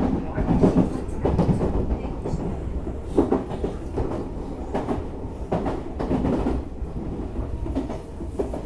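Odakyu 8000 series electric commuter train running along the line, heard from inside the leading car: a steady rumble with irregular thumps of the wheels over rail joints.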